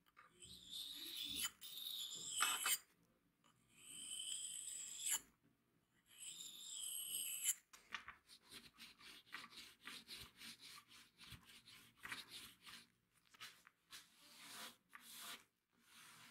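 Straight razor blade drawn along a whetstone in four long honing strokes, each a scrape carrying a high ringing whistle. From about eight seconds in, a fast run of short rubbing scrapes follows as a compound bar is rubbed onto a leather strop.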